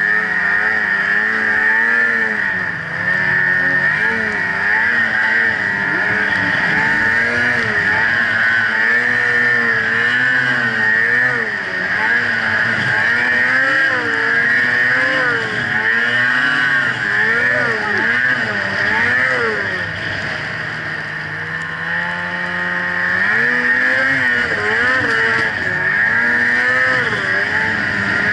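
Snowmobile engine revving up and down under load in deep powder, its pitch rising and falling about once a second as the throttle is worked. About two-thirds of the way through it holds a lower, steadier note for a couple of seconds, then climbs again.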